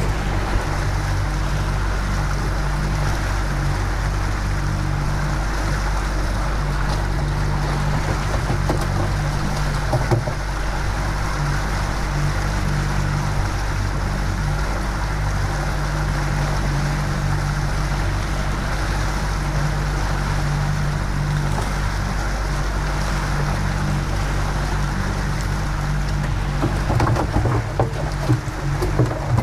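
Yamaha 115 hp outboard motor running steadily at trolling speed, a constant low hum with water rushing past the hull and wind. A few irregular knocks and rattles near the end.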